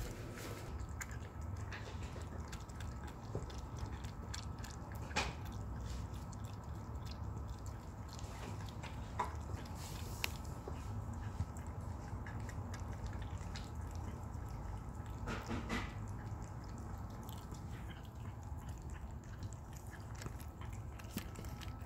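Cats eating wet cat food from bowls, heard close up: steady chewing with many small clicks.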